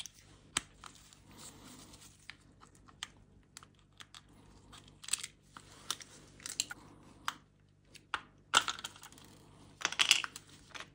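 Gloved hands taking apart the plastic housing of a cordless impact driver: scattered small plastic clicks and rattles with brief scraping rubs. The louder bursts come about 8.5 and 10 seconds in.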